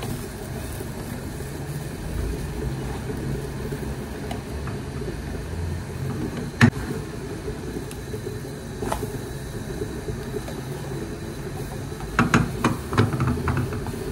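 Steady low rumble under a frying pan on a gas hob. A nylon spatula knocks sharply against the nonstick pan about halfway through, and several quicker taps and scrapes follow near the end as a pancake is turned.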